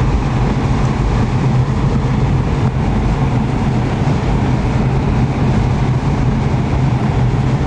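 A moving car heard from inside the cabin: a steady engine hum under even road and wind noise.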